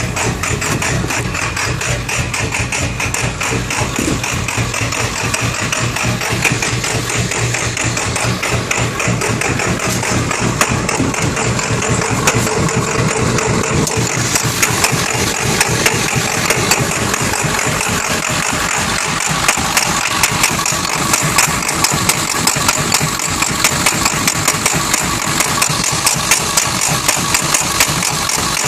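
Engine idling roughly, with a fast run of uneven firing pulses; from about halfway through, sharper irregular beats stand out above the running.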